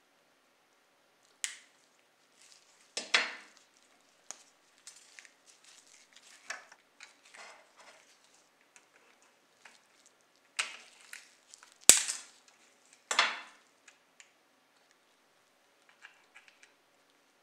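Sharp clicks and snaps of small chrome exhaust parts and pliers against a model car's underbody as the parts are worked and pressed into place, with light ticks of handling between. There are about five louder snaps, the loudest about two-thirds of the way in.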